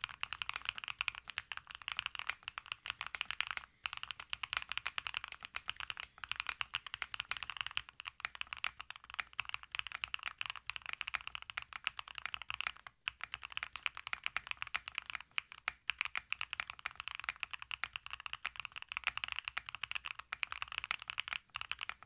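Steady fast typing on a Findawhale Myth-68 mechanical keyboard fitted with lubed JWK Jade Rabbit linear switches, which have a polycarbonate top housing and a nylon bottom housing. The key strokes come as a dense stream of clacks, with brief pauses about 4 and 13 seconds in and just before the end.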